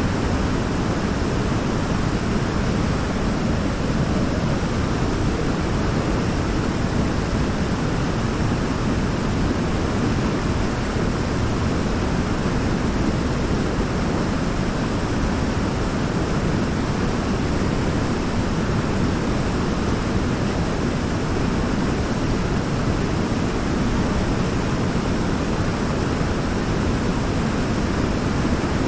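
River water pouring over a large rock in a small waterfall: a steady, unbroken rush, deepest in the low end.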